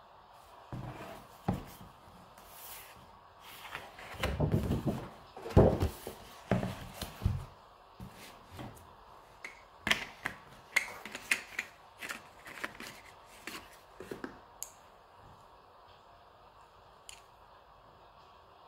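Close handling noises: a sheet of paper rustling and being laid down on a wooden table with soft thumps, then a run of small sharp clicks and taps.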